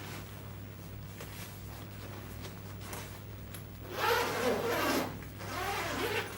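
Backpack zipper being pulled open in two strokes, starting about four seconds in, over a steady low hum.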